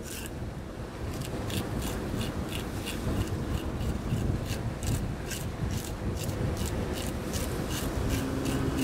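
Knife scraping along a barracuda's skin to scale and clean it, short strokes repeating about three times a second, over the low rumble of surf and wind.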